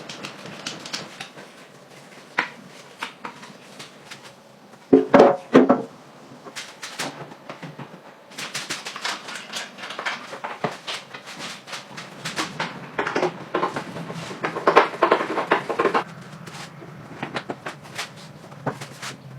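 Hand work on metal motorcycle parts: irregular clinks, taps and knocks, with a loud cluster of knocks about five seconds in and a long run of rapid ticking and tapping in the second half.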